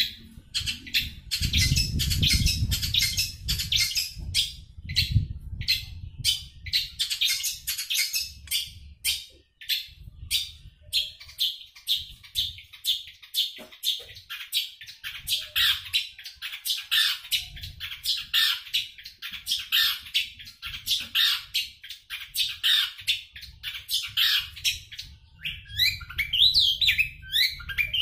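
Caged long-tailed shrike (cendet) singing non-stop in a fast, rolling stream of chattering notes: a 'sapu jagat' song packed with mimicked calls of other birds. Near the end the notes turn into quick slurred whistles.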